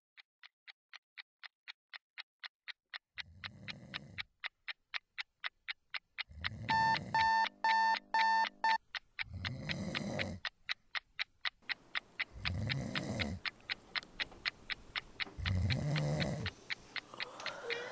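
A man snoring loudly, one long rasping snore about every three seconds, over an electronic alarm clock beeping rapidly, about four to five beeps a second, getting louder through the first few seconds. Around the middle a louder, lower beeping pattern sounds for about two seconds.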